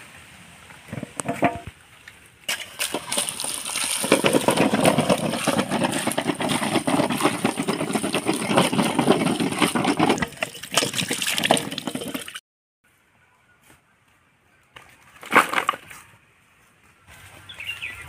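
Water pouring and splashing into a steel bowl while hands scrub and turn muddy potatoes, the potatoes knocking against the metal. It cuts off abruptly about twelve seconds in, and a single sharp knock follows a few seconds later.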